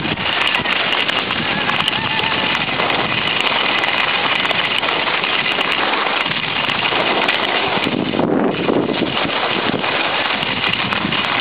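Wind noise on the microphone during a downhill ski run, with skis scraping over the snow: a steady, loud rush with scattered sharp crackles throughout.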